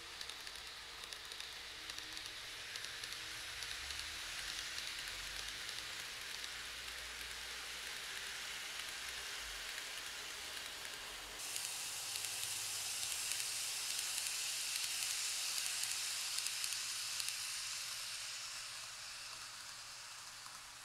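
N gauge model trains running on the layout's track: a steady hissing rattle of small wheels and motors on the rails. About eleven seconds in it cuts abruptly to a louder, higher hiss.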